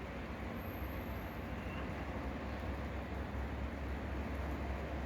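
Freight train of Eas open wagons and Fas hopper wagons rolling past, a steady rumble.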